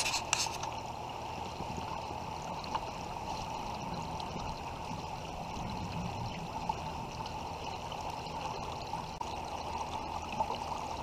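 Steady rush of river current flowing and lapping around a kayak, with a few sharp knocks of the camera being handled right at the start.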